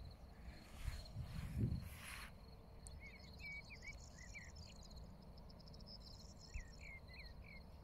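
Quiet meadow ambience: insects chirping in a steady high trill, with a bird singing short, curving chirps through the second half. A few brief rustling swishes in the first two seconds.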